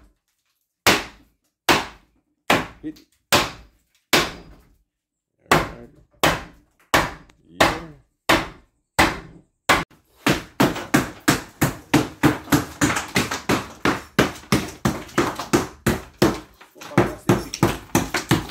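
Hand hammer blows on wooden floor framing, single strikes about a second apart. From about ten seconds in, rapid hammering, three to four blows a second, chipping ceramic tile off a bathtub surround.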